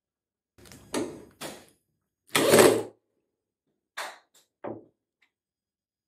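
A handful of short knocks and scrapes, the loudest about two and a half seconds in, from handling the plastic outer tub of a front-loading washing machine during disassembly.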